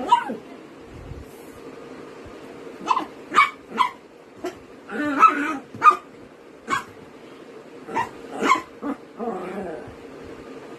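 Small black dog giving short, high yips and barks, about eight scattered through a few seconds, while play-fighting with a cat.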